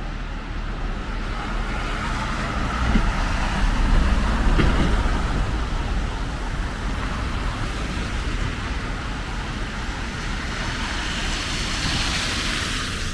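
Street traffic: vehicles driving past with engine rumble and tyre noise, loudest about four seconds in, with another tyre hiss swelling near the end.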